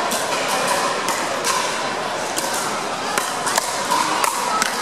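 Pickleball paddles hitting a hard plastic ball in a doubles rally: about a dozen sharp, irregular pops echoing in a large gym, over a steady background of distant voices.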